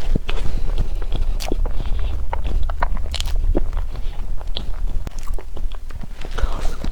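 Close-up chewing and biting of sesame crepe cake: many short, irregular mouth clicks over a low steady hum.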